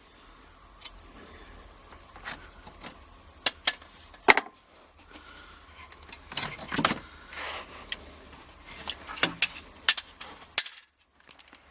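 Handling of pleated furnace media air filters and their metal filter cabinet: a string of sharp clicks and knocks with rustling, in several clusters, over a faint low hum.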